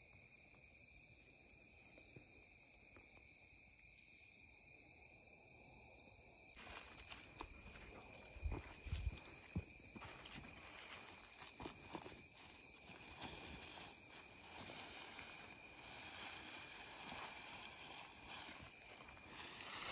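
Steady chorus of night insects with two constant high trilling bands. About a third of the way in, rustling and crunching of dry leaves starts as the buck is dragged over the ground by its antlers, with a few low thumps around nine seconds in.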